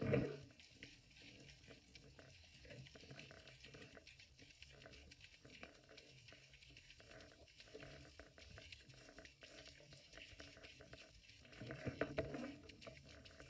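Underwater sound picked up by a submerged GoPro: a low, muffled wash of water with faint scattered clicks. There is a louder muffled surge at the very start and another about twelve seconds in.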